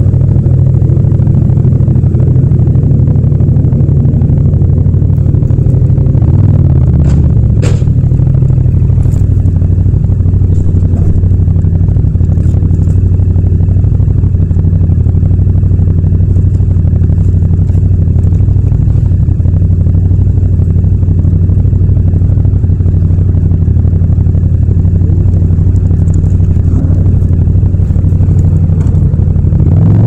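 Yamaha MT-07 (FZ-07) 689 cc parallel-twin engine running at low revs as the bike rolls up, then idling steadily while stopped. There is a single sharp click a little under eight seconds in.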